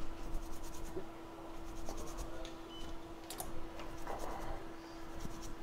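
Light scratching and scattered small ticks of a hand tool working on a circuit board, over a steady faint electrical hum.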